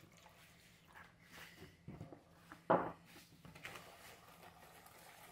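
Wire whisk stirring cake batter in a plastic bowl: faint scattered clicks and scrapes, with one sharper tap a little under three seconds in.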